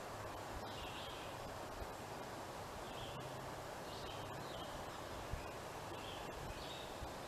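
Quiet woodland ambience: a steady faint hiss with a few faint, short, high bird chirps scattered through.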